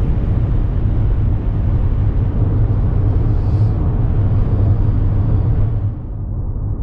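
Steady road and engine rumble inside a moving car's cabin, turning muffled near the end.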